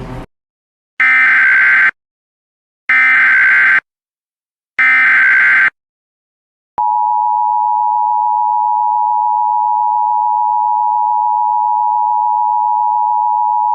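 Emergency Alert System tones announcing an Emergency Action Notification. First come three bursts of SAME header data, about a second each. About seven seconds in, the steady two-tone attention signal starts and holds.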